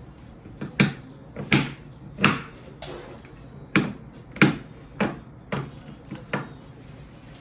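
A series of about nine sharp knocks and thuds, roughly every two-thirds of a second, from things being bumped and handled in a kitchen.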